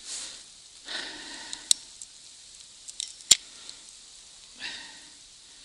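Quiet handling noise from an angler jigging a winter ice-fishing rod: a few soft rustles and two sharp clicks, the second, about three seconds in, the loudest.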